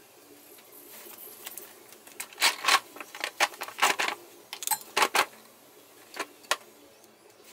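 Metal hand tools clinking and rattling in an irregular run of sharp clicks over a few seconds as a socket extension with a hex-key adapter is worked onto the transfer case plug.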